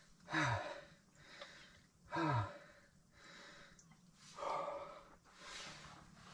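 A man's breathing with two short, low sighs whose pitch falls, about half a second in and about two seconds in, followed by softer breaths.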